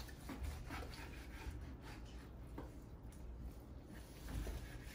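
Long knife slicing through smoked brisket and touching a wooden cutting board: a few faint, irregular cutting strokes.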